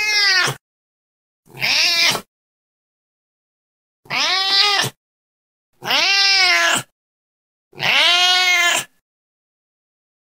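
Domestic cat meowing repeatedly: five separate meows, each about a second long, rising then falling in pitch. The first meow is already under way at the start.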